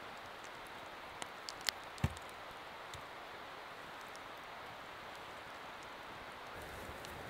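A long wooden pole knocks once with a dull thump, about two seconds in, as it is set against a pine trunk. A few light twig-like clicks come just before it, over a steady rushing hiss.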